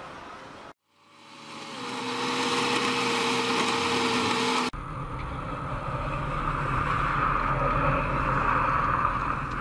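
Tractor engine running steadily while it pulls a trailed road grader, fading in after a brief silence near the start. About halfway through the sound changes abruptly to a louder, noisier engine sound.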